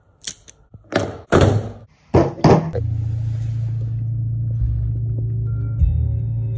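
A few thuds and rustling knocks, like a car door and someone settling into a seat, then from about three seconds in a steady low hum inside the car cabin.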